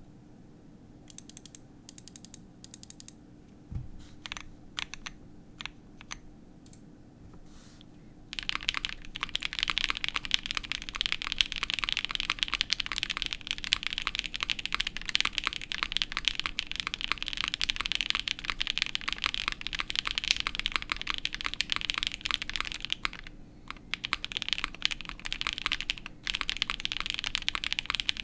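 Mechanical keyboard typing on a Polaris with Kailh Kings frankenswitches (Waterking housings with Kailh Long Pole stems, stems lubed), GMK keycaps and an aluminium half plate with foam: a smooth, deep clack. A few scattered keystrokes, then fast continuous typing from about eight seconds in, with a brief pause near the end.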